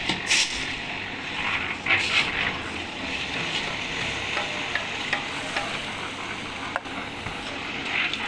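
Wet concrete being scraped and worked with hand tools: a steady gritty rasp with louder scrapes just after the start, about two seconds in and near the end, and one sharp click near seven seconds.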